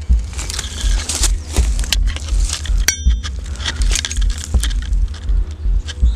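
Crunching and crackling of dry twigs and loose stones being handled and stepped on, with one sharp ringing metallic clink about three seconds in, as of the old iron railway chair screw knocking against metal or stone.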